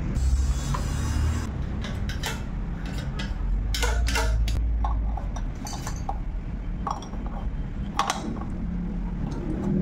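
Scattered metal clicks and clinks of hand tools (screwdriver, open-end wrench) working on a bicycle rear hub's axle and bearing cone, over a steady low background rumble.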